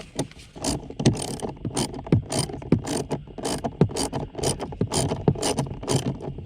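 A hand ratchet tool clicking in rapid, irregular strokes as a blower motor mounting screw is driven in by hand.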